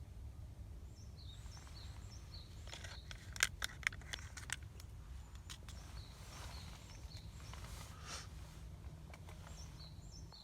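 A songbird calling outdoors in runs of short, high, falling chirps, three times. A few sharp clicks come about three to four and a half seconds in, over a steady low background rumble.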